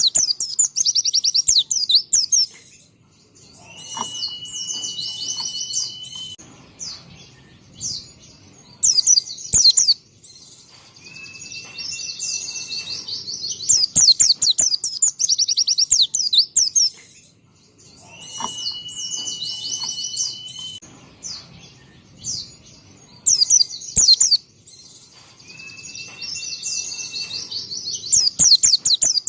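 White-eye (pleci, a Zosterops songbird) singing in full voice: dense bursts of rapid, high chattering trills, alternating with a long, steady whistle that recurs about every seven seconds.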